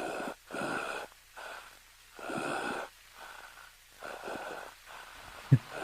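A person wheezing in a run of short breathy gasps, about one a second, with a sharp click near the end.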